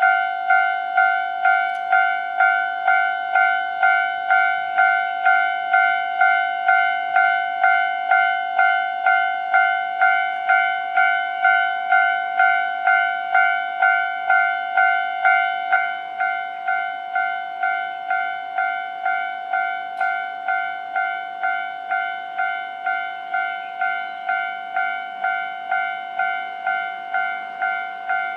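Japanese railway level-crossing warning bell ringing steadily, an electronic two-tone ding repeating about twice a second, which signals that a train is approaching. About halfway through the bell becomes quieter.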